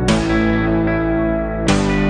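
Background music: guitar chords with an effects sound, each struck and left to ring, a new chord about every second and a half.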